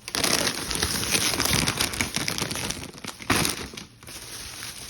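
Plastic packaging crinkling and rustling as groceries are handled, with a sharp crackle a little over three seconds in.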